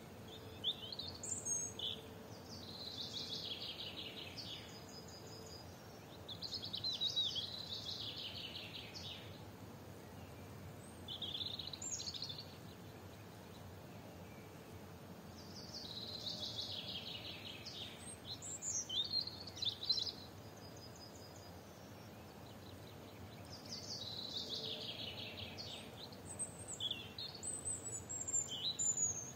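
A songbird singing, about five phrases each a quick run of notes falling in pitch, some ending in a short higher note, with pauses of a few seconds between phrases, over a faint steady outdoor background.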